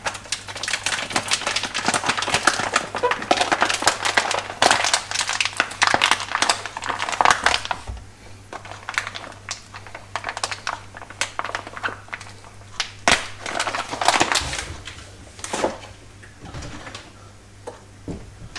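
Rustling and quick clicking of things being handled, dense for the first seven seconds or so, then sparser taps and knocks. A steady low hum runs underneath.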